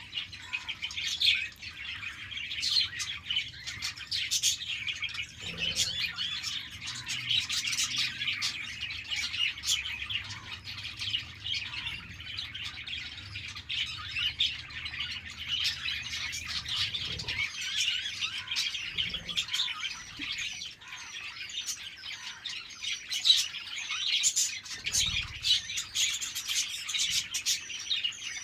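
A flock of budgerigars chattering continuously, with dense overlapping chirps, warbles and occasional squawks.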